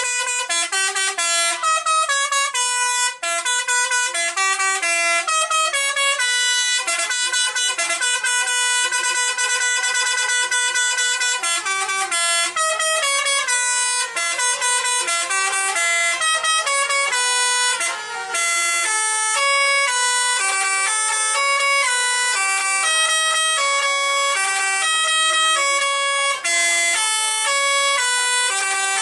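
Tour buses' 'telolet basuri' multi-tone musical air horns playing fast melodies of stepped notes without a break, the buses answering one another.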